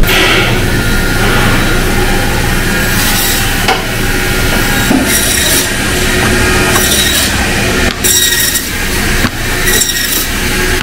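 Meat band saw running with a steady hum while frozen pork loin is pushed through the blade, each cut a brief rasping burst, about five of them from a few seconds in.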